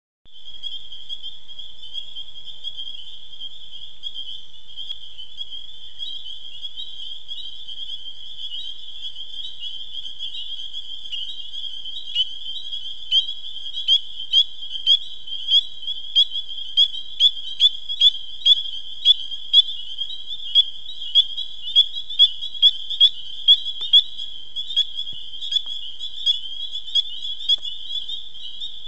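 A frog chorus: many frogs calling at a high pitch, merging into one steady ring. From about twelve seconds in, a single nearby frog calls loudly over it, about twice a second.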